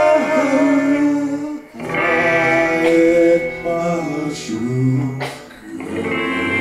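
Live band music: guitar playing with a sung vocal line, briefly dropping away about two seconds in and again near the end.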